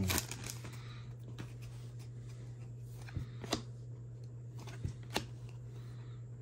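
Trading cards being handled and flipped through, with a few short, light clicks in the second half. A steady low hum runs underneath.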